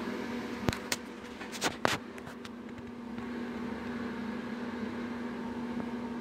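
Old ceiling-mounted exhaust fan running with a steady motor hum. A few sharp clicks come in the first two seconds.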